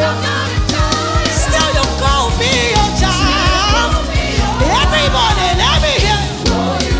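Live gospel praise music with a steady drum beat, bass and singing voices with vibrato.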